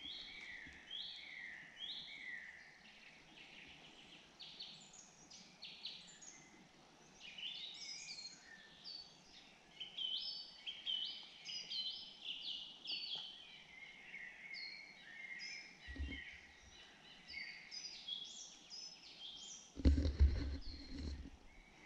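Woodland birds singing in a conifer forest: many short, high chirping phrases overlapping throughout. Near the end there is a burst of low rumbling and thumping handling noise as the camera is swung round.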